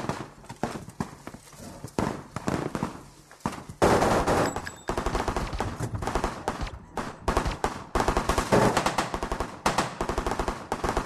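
Automatic rifle fire in a gunfight: scattered shots for the first few seconds, then dense bursts of rapid fire from about four seconds in that run on almost without pause.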